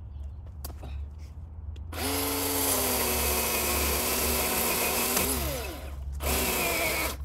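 Chainsaw cutting into mulberry wood. It starts about two seconds in and runs steadily for about three seconds, then slows with a falling pitch and stops. A second, shorter cut follows near the end.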